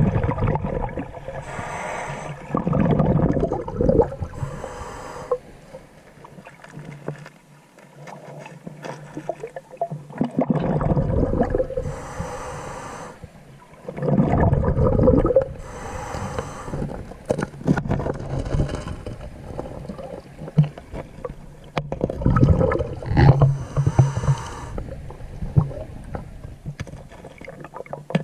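A diver's breathing heard underwater: loud breaths roughly every few seconds, with a longer pause near the middle.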